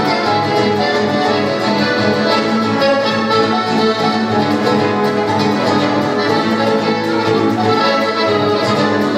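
Live instrumental music from a trio playing continuously, with sustained melodic lines over a steady low accompaniment.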